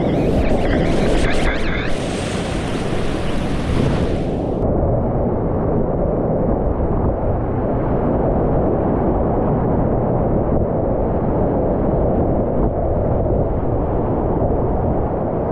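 Whitewater rapids rushing and splashing around a kayak, heard from a camera on the boat: bright splashing for about the first four seconds, then the sound turns suddenly muffled, a steady low rush.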